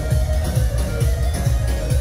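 Electronic dance music with a heavy bass beat and sustained synth tones.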